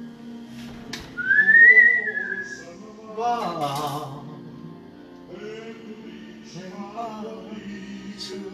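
A man whistling a tune: a long bright note that rises and then falls about a second in, followed by lower singing notes. A sharp click comes just before the whistle.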